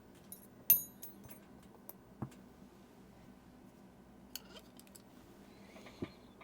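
A few sharp clicks and taps from small metal tools and watch parts being handled on a work surface. The loudest comes about three-quarters of a second in and has a short high ring; softer ones follow about two, four and six seconds in.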